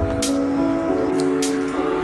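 Background music: sustained chords with a light beat ticking over them.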